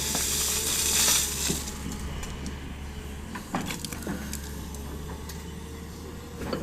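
Diesel engines of a backhoe loader and tractor running steadily, with a loud rush of mud and stones tipping from the loader bucket in the first second and a half, followed by scattered knocks and clinks.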